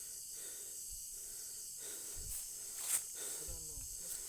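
Steady high-pitched drone of night insects, with a single click about three seconds in and a faint murmured voice near the end.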